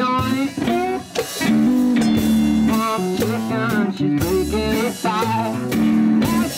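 Live one-man-band blues-rock: an electric guitar riff with bending notes over low foot-played drum thumps about once a second, with sharp cymbal hits.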